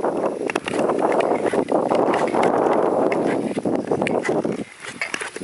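Ice skates gliding and scraping over thin, clear lake ice, with many sharp clicks and ticks from the ice under the blades. The scraping drops away briefly near the end.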